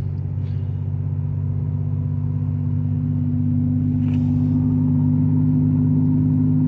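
Truck engine and road noise heard from inside the cab: a steady drone that grows louder and rises slightly in pitch about three seconds in as the truck speeds up.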